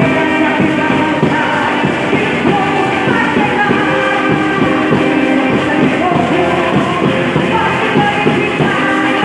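An orchestra playing, with a steady beat.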